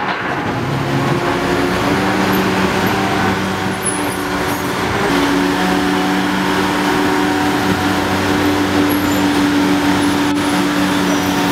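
Hitachi ZX800 excavator's heavy diesel engine running steadily under load, over the noise of street traffic; the engine note shifts about five seconds in.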